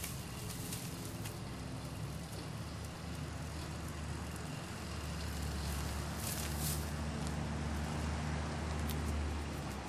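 A brush-pile fire burning with scattered crackles and pops, over a steady low engine hum that grows louder about halfway through.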